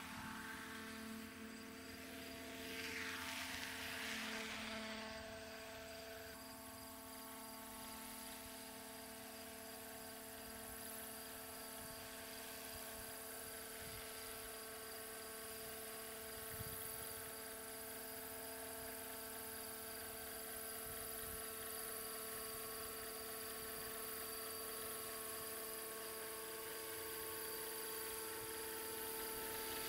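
Electric 700-size radio-controlled model helicopter flying, its brushless motor and rotors giving a steady, even whine made of several held tones. There is a short swell of hiss about two to four seconds in.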